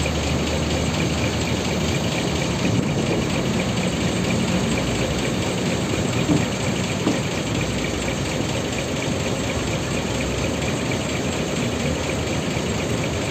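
Intercity coach's diesel engine idling steadily, with a short knock about halfway through.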